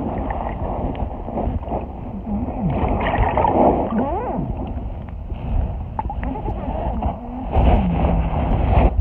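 Moving water heard through a submerged phone microphone: a steady, muffled rumble with gurgles. A few faint sliding tones come through, about three seconds in and again near the end.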